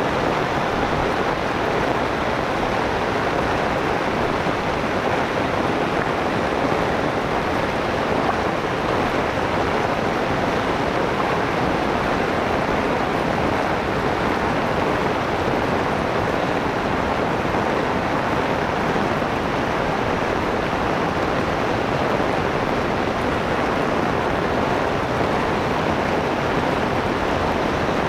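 Steady heavy rain, an even rushing hiss that does not let up.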